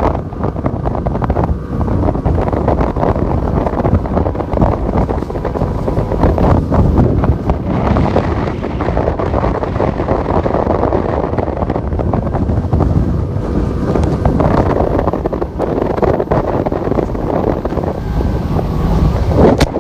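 Strong wind buffeting the microphone aboard a boat running across choppy water, a loud, steady rush with the water and hull noise underneath.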